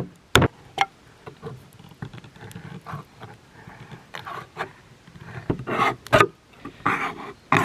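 A pocket knife being driven into the lid of a can with a rock to open it without a can opener: sharp knocks near the start and a cluster about six seconds in, with the blade scraping and prying at the lid between and near the end.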